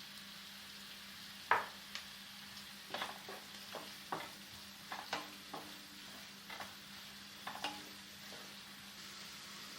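Sliced onions sizzling softly in hot oil in a pan while a spatula stirs them, with a dozen or so irregular scrapes and knocks against the pan. The first scrape is the loudest. The onions are being sautéed to soften and brown.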